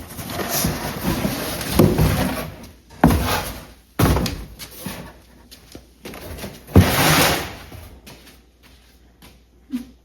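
Things being handled and moved about: scraping and rustling with several sharp knocks, dying down near the end.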